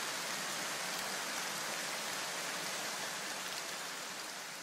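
Steady, even hiss like falling rain, fading gradually over the last second or so.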